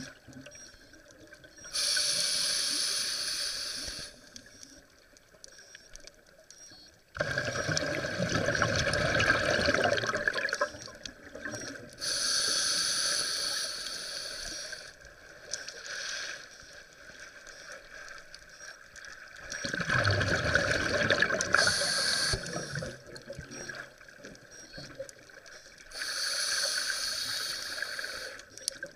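Scuba diver breathing through a regulator underwater: a slow cycle of hissing inhales through the demand valve and longer, louder rushes of bubbling exhaled air, with quiet pauses between breaths.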